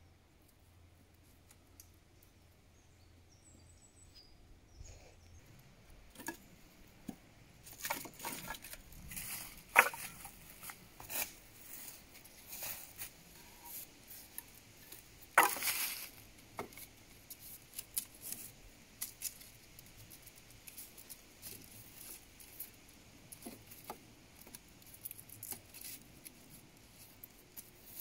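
Dry wooden sticks knocking and clattering as they are handled and laid together, with dry leaf litter rustling and crackling. After a quiet start the knocks come irregularly, and two sharper knocks stand out, about a third of the way in and just past the middle.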